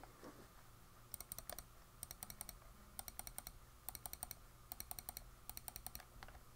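Faint bursts of rapid computer mouse clicks, several quick clicks per burst and about one burst a second, over a low steady hum.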